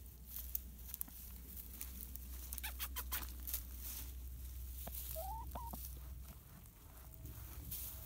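A hen gives one short rising call about five seconds in, as a hand takes hold of it, after a few sharp rustles in the grass.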